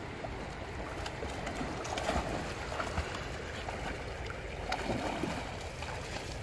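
Shallow river water rushing over gravel, with a husky splashing as it wades through the current a few times.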